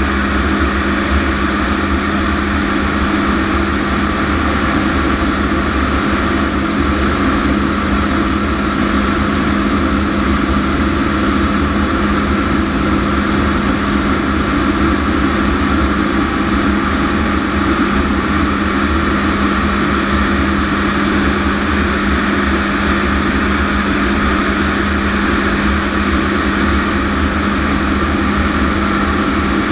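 Lockheed T-33 jet trainer in flight, heard inside the closed cockpit: the Allison J33 turbojet and rushing air, steady and loud, with a constant low hum.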